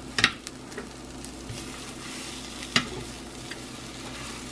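French toast roll-ups sizzling steadily in butter in a nonstick frying pan, with a couple of sharp clicks of metal tongs against the pan as the pieces are turned, one about a quarter-second in and another near three seconds.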